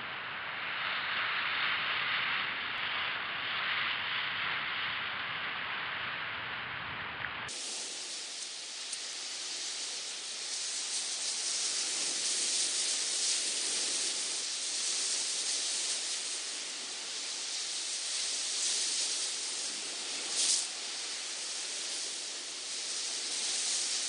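Steady rush of sea surf breaking and foaming over a rocky shore, swelling and easing. About seven seconds in the sound changes abruptly to a thinner, hissier wash, and there is a short louder burst near the end.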